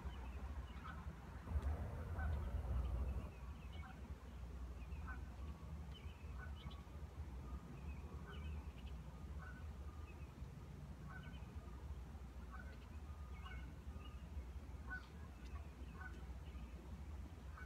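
A distant bird calling over and over, short calls about once a second, over a steady low rumble.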